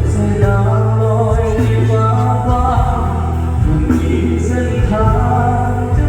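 Thai luk thung song played live by a band, a man singing over a heavy, steady bass line.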